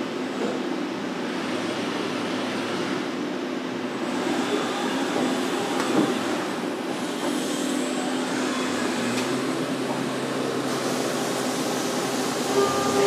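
Centroid CNC machining center running, with a steady mechanical drone as its spindle head moves into position. A low hum comes in about two-thirds of the way through, and a hiss of coolant spray rises near the end as the tool meets the billet aluminum block.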